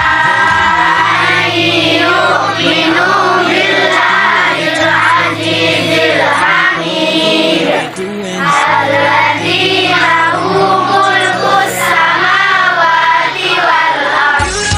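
Music with voices singing a melody over held bass notes.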